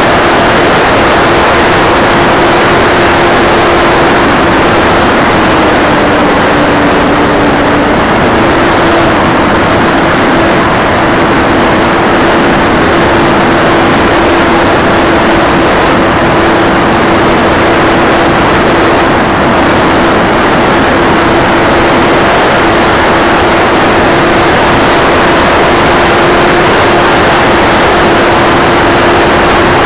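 Onboard sound of an E-flite Timber RC plane in flight, heard from an action camera on its belly: loud rushing wind over the camera with the steady whine of its brushless electric motor and propeller. The motor's pitch dips slightly about five seconds in and comes back up about three seconds later.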